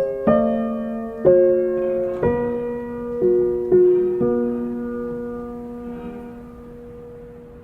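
Background piano music: slow, sparse notes and chords struck about once a second, ending on a long held chord that fades away.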